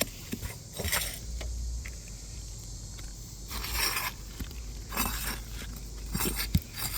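Asphalt shingles being pried and torn loose on a roof: a few short scraping and crackling bursts over a low steady rumble. The brittle shingles tear apart as they are worked free.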